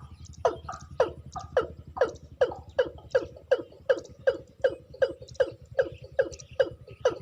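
Watercock calling in a long, rhythmic series of short notes, each dropping quickly in pitch, about two and a half a second, over a steady low hum.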